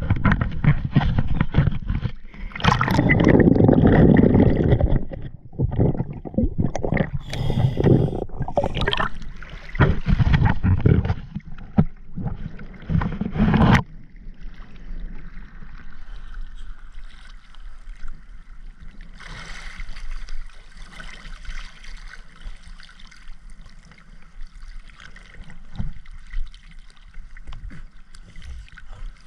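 Underwater gurgling of a scuba diver's exhaust bubbles in loud irregular bursts, then, about fourteen seconds in, a quieter steady water hiss.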